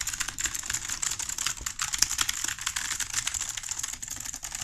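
Typing on a mechanical keyboard with blue (clone Cherry MX Blue) clicky switches: a fast, continuous stream of sharp key clicks.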